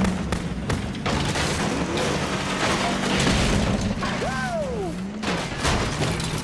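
Film sound effects of a Hummer H2 ploughing through a house: repeated crashes of splintering wood and smashing debris over a steady low drone. Curving high-pitched squeals come a little past the middle.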